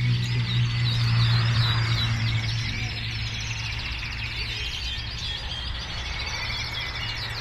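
Show canaries singing, with continuous rapid trills and chirps from several birds at once, over a steady low hum that is loudest in the first few seconds.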